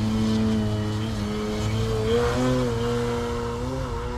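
Electric motor and propeller of a 60-inch Extra NG RC aerobatic plane on a takeoff and steep climb, a steady whine whose pitch rises about two seconds in and again near the end as the throttle is pushed up.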